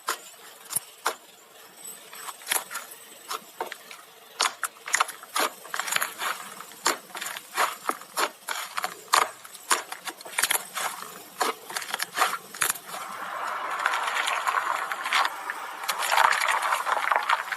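Slime being squeezed and poked by hand, giving an irregular run of sharp pops and clicks that thickens into a continuous crackle in the last few seconds.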